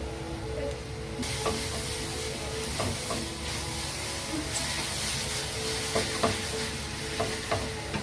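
Instant noodles sizzling as they are stir-fried in a nonstick pan, with a wooden spatula tossing them and tapping and scraping against the pan now and then. The sizzle grows louder about a second in.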